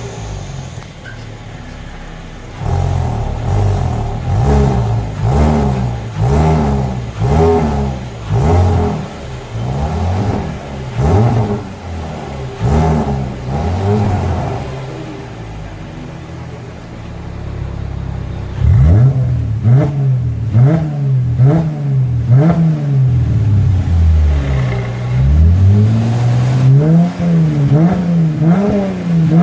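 Mercedes-Benz W207 E350 Cabriolet engine heard at its tailpipes through an aftermarket variable-valve exhaust, idling briefly and then revved in repeated short blips. For the first half the exhaust valves are closed; after a short lull they are opened and the blips come out noticeably louder.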